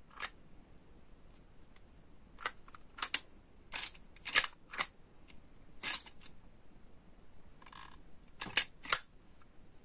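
Hard plastic clicks and snaps from a Chupa Chups lollipop-holder toy being handled: its jointed arms moved and its hinged dome lid opened. About ten sharp clicks at uneven intervals, with a short scraping rustle about three-quarters of the way through.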